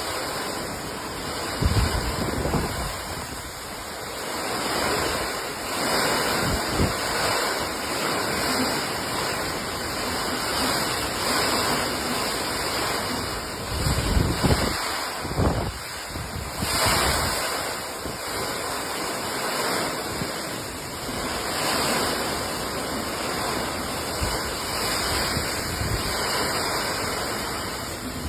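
Steady rain falling, a dense even hiss, with gusts of wind buffeting the microphone a couple of seconds in and again about halfway through.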